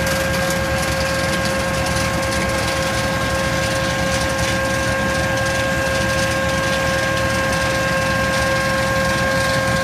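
Tractor-mounted GIAMPI STAR 1800 Plus nut harvester running steadily with its tractor engine: a constant machine whine over a low engine rumble.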